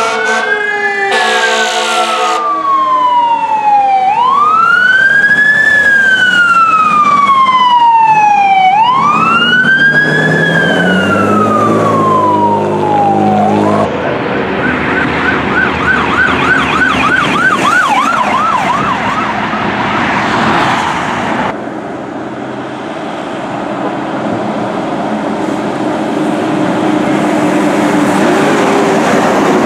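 Emergency vehicle sirens: a fire truck's wail siren rising and falling slowly, about one sweep every four to five seconds, with a horn blast at the start. Partway through it gives way to a fainter, fast warbling yelp siren, and then to the engine and road noise of a passing fire engine.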